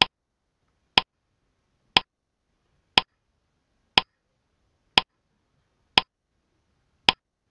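Countdown-timer clock tick sound effect: short, sharp ticks once a second with silence between them, eight ticks in all.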